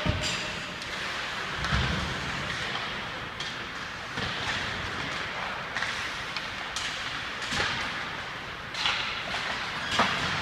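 Ice hockey play: skate blades scraping the ice under a steady hiss, with about ten sharp clacks of sticks and puck scattered through it and a low thump about two seconds in.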